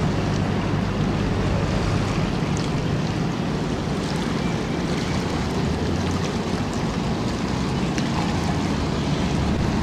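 Boat engine running steadily with a low hum, under a wash of water and wind noise.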